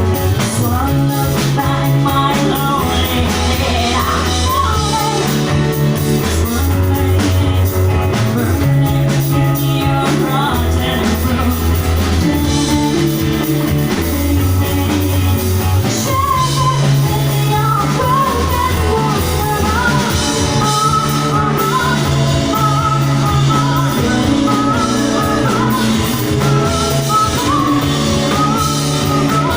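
A rock band playing live: a bass line holding long low notes under guitars and drums with cymbals washing throughout, and a singer's wavering voice over the top.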